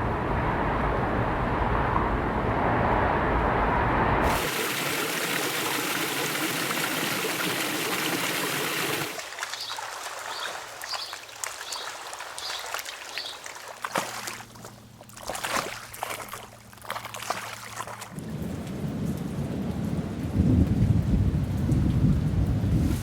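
Several rain recordings cut back to back. It begins with steady rain over a low rumble, then changes to a brighter, even rain hiss, then to lighter rain with scattered close drips. A deep rumble of thunder swells through the last few seconds.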